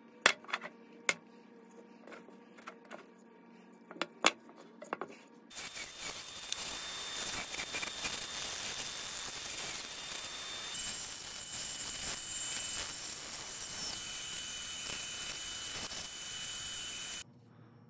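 A few sharp clicks and taps, then about five seconds in a bandsaw starts cutting through a glued-up hardwood blank: a steady, loud hiss of blade through wood with a high whine, which stops abruptly near the end.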